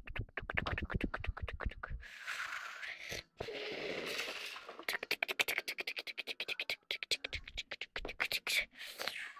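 Mouth-made sound effects during toy play: rapid runs of clicking, about ten clicks a second, broken about two and four seconds in by longer breathy rushing noises.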